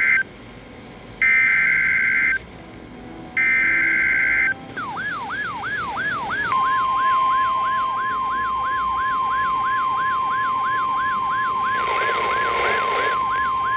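NOAA Weather Radio alert: the screechy two-pitch SAME data bursts of the header, the end of one and then two more about a second long each. These are followed by a siren-like tone that sweeps up and down about two and a half times a second. About halfway through, the steady single-pitch Weather Radio warning alarm tone joins it, marking a warning-level alert.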